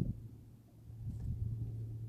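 Volkswagen Jetta Mk3 TDI's four-cylinder turbodiesel idling with a steady low hum, fading briefly about half a second in.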